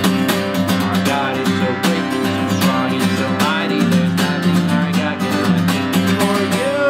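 Acoustic guitar strummed quickly in a steady, even rhythm, playing an up-tempo song.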